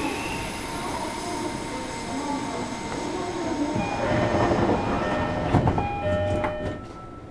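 JR Kyushu 305 series electric train running, heard from inside the car. About four seconds in, several steady whining tones from its Toshiba VVVF inverter and permanent-magnet motors come in and step in pitch, then the sound falls away near the end.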